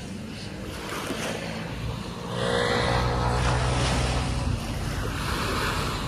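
Small waves washing up on a sandy beach, with wind rumbling on the microphone that grows louder about two seconds in.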